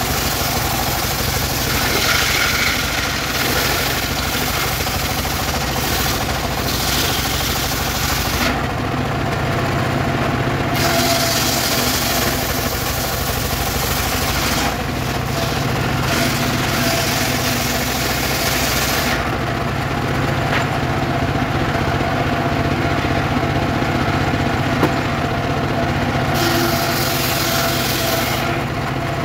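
Engine-driven portable circular saw ripping weru wood boards. The engine runs steadily throughout, and the blade's high cutting noise drops away briefly about a third of the way in and again for several seconds past the middle.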